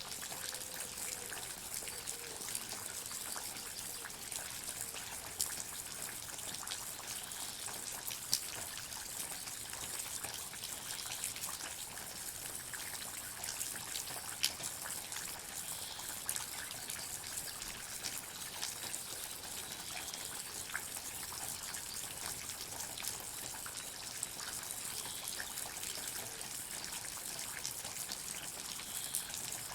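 Water dripping in a forest: many small drops tick irregularly over a steady watery hiss, with a few louder single drops now and then.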